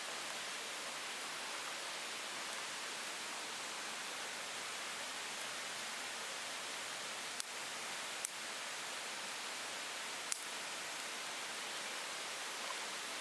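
A steady hiss with three sharp pops in the second half.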